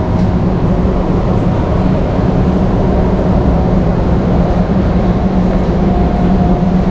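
Steady loud background noise of a large warehouse store: a continuous rumble with a low hum, without distinct events.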